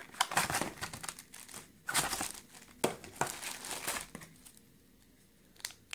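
Cardboard box parts and plastic-bagged cables rustling and crinkling as they are handled, with sharper knocks about two and three seconds in; the handling dies down for the last couple of seconds.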